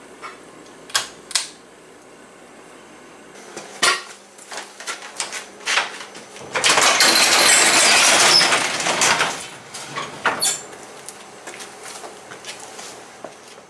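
A sectional garage door being raised, a loud rattling rumble lasting about three seconds, with scattered knocks and clicks before and after it.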